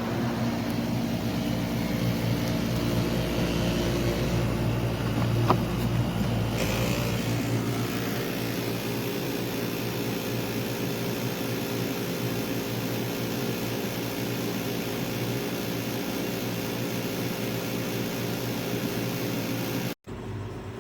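SereneLife 10,000 BTU portable air conditioner running, a steady hum with fan noise. A single click comes about five and a half seconds in, and the sound cuts out for an instant near the end.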